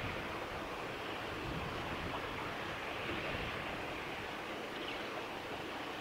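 Flowing river water giving a steady, even rushing noise.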